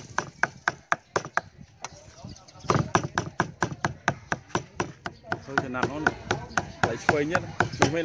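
Cleaver chopping rapidly on a round wooden chopping block, mincing a pile of food, about four sharp strikes a second. The strokes are lighter for the first couple of seconds, then come harder and faster from about three seconds in.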